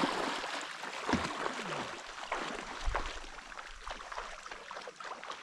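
Water splashing and swishing as a retrieving dog swims through a decoy spread, loudest at first and fading as the dog moves off.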